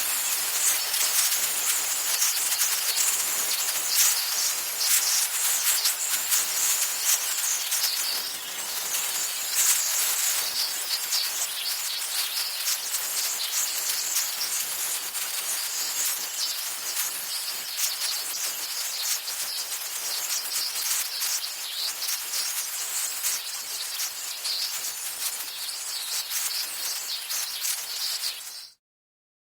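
Compressed air escaping in a steady, high, crackly hiss that cuts off suddenly near the end.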